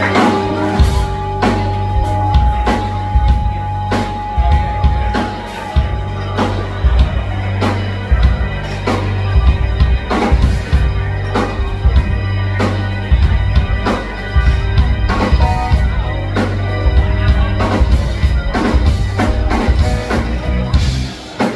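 Live rock band playing a mostly instrumental jam: electric guitars over a drum kit keeping a steady beat and a steady bass line, with a long held high note through the first six seconds.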